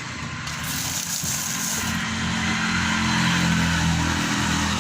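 Motor vehicle engine running over road noise, its note rising and growing stronger from about two seconds in as it picks up speed.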